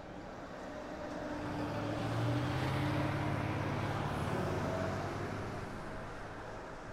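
A motor vehicle passing close by: its engine hum swells over a couple of seconds, holds, then fades away.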